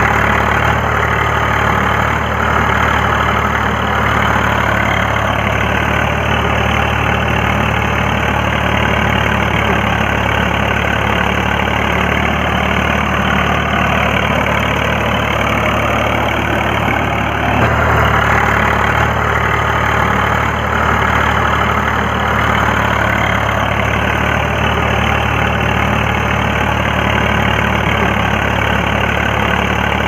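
Remote-control model tractor's motors running steadily while its homemade rotavator turns through loose sand, a constant mechanical hum with a brief swell about two-thirds of the way through.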